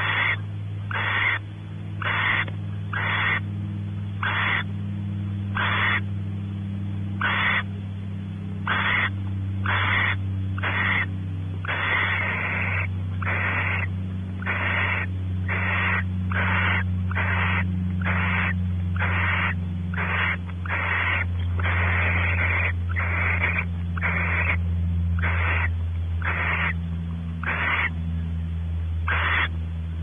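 Barn owl giving repeated raspy, hissing snore calls, about one a second, some drawn out longer, over a steady low hum. This is the begging or soliciting snore of a female expecting the male.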